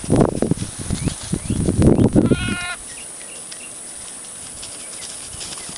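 A goat bleats once, a short quavering call about two and a half seconds in. Before it comes rough bumping and rustling noise; after it, only a quieter steady background with a few faint high chirps.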